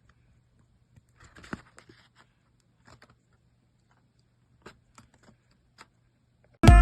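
Faint scattered clicks and a brief rustle, as of handling light material, with a low hum underneath; loud music with a beat starts abruptly near the end.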